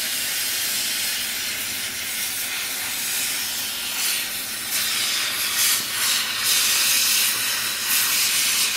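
HHO (oxyhydrogen) brazing torch flame hissing steadily as it heats steel, growing louder in uneven surges about halfway through.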